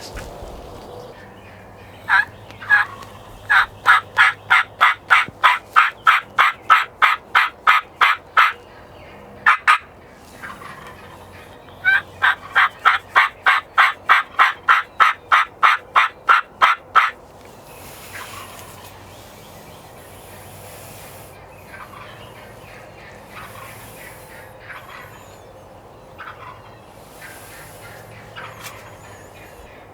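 Wild turkey yelping: two long, evenly paced runs of sharp notes, about four a second, each lasting around five seconds, with a single note between them.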